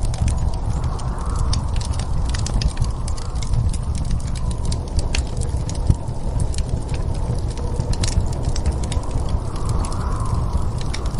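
Fireplace crackling, with many small irregular pops and snaps over a steady low rumble.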